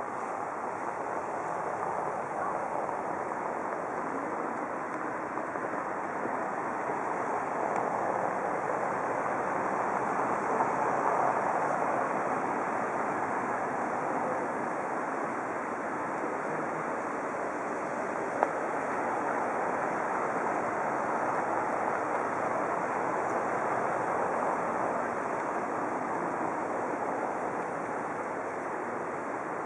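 Steady outdoor rushing noise with no distinct events, slowly swelling and easing, and a single faint click about two-thirds of the way through.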